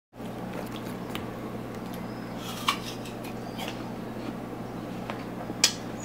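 Steady low hum of indoor room tone with a few light clicks and clinks, the sharpest about two and a half seconds in and just before the end.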